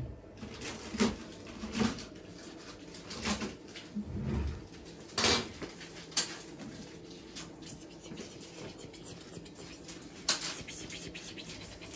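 Scattered light clicks and a few soft knocks of handling around a cat on an exam table, a handful of them sharper, with no steady sound underneath.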